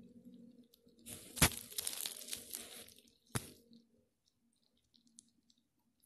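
Close rustling and crinkling of something handled right at the phone's microphone for about two and a half seconds, with a sharp click about a second and a half in and another near three and a half seconds.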